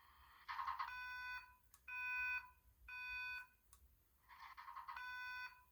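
Fire alarm speaker strobe sounding its alert tone after the voice evacuation message: faint beeps in a group of three about a second apart, then a pause before the next group begins.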